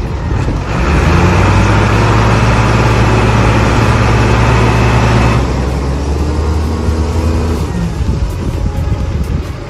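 Diesel engines of a Case IH Puma 125 and a Valmet 8000 tractor running at high revs under heavy load as the two pull against each other, then easing off about five seconds in and dying away a couple of seconds later.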